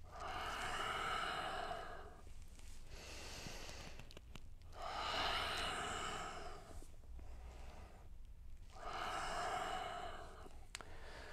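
A man breathing deeply and audibly through a stretch: three long, loud breaths about four seconds apart, with quieter breaths between.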